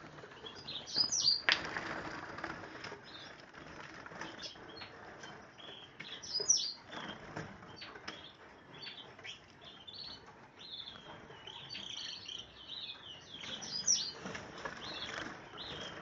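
Small caged finches chirping in quick, high, scattered notes, with a few louder bursts of wing flutter about a second and a half in, midway and near the end.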